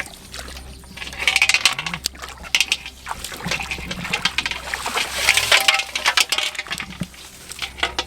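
Splashing and sloshing in shallow water as fish are grabbed by hand, coming in two bursts about a second in and again about four seconds in.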